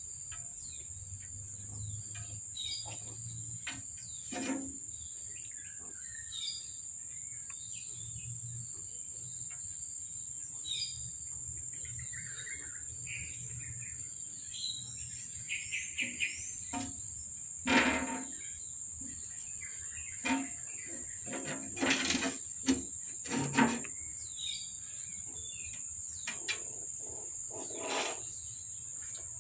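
Steady high-pitched insect drone with scattered bird chirps, and a few sharp knocks or taps, the loudest about two-thirds of the way in.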